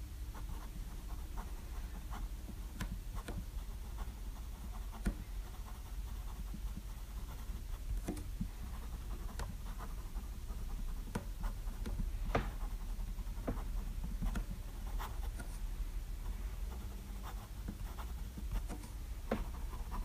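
Pilot Custom 823 fountain pen with a medium nib writing on 90 gsm Rhodia paper: soft scratching strokes and irregular small ticks as the nib touches down and lifts, over a low steady hum.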